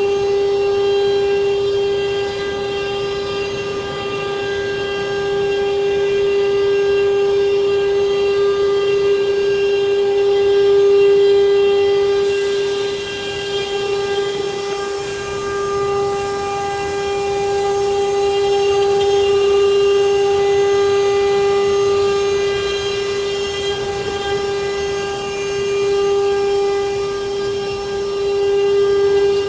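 CNC router spindle running with a steady whine and a ladder of overtones while machining wooden chair seat panels, its loudness swelling and easing gently as it cuts.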